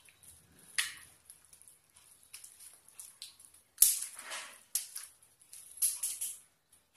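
Hand mashing and mixing charred brinjal and tomato with chopped onion in a steel bowl: irregular soft squishing and crunching, with a sharper click about four seconds in.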